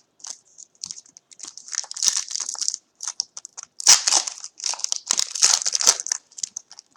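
A trading-card pack's wrapper crinkling and tearing as it is opened, with cards handled, in irregular rustling bursts that are loudest about two seconds in and again from about four to six seconds in.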